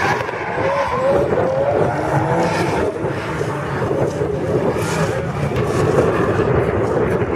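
Drift cars' engines revving hard with wavering pitch, mixed with tyre squeal as the cars slide sideways; a loud, continuous din.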